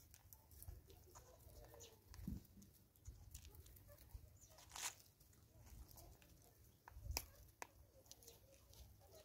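Faint scattered clicks and rustles of a vervet monkey picking seeds out of a plastic container, over a low rumble.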